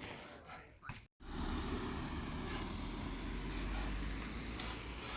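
Steady low rumble with hiss, from wind on the microphone and tyre noise while riding a BMX-style wheelie bike. It starts after a sudden dropout about a second in.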